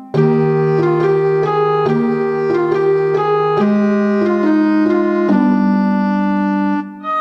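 Background music: a keyboard instrument playing a melody over held notes, the notes changing about every half second, with a brief dip near the end.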